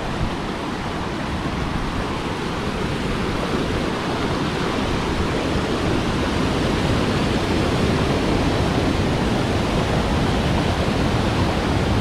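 River water rushing down a rock channel at the brink of a waterfall, a steady noise of white water that grows a little louder over the first few seconds.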